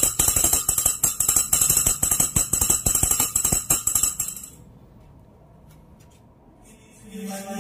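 Song played through a home-built 5.1 amplifier and its speakers: a fast, dense run of clicking, jingling percussion like a tambourine. It drops away about four and a half seconds in, leaving only a faint sound, and chanted singing comes in near the end.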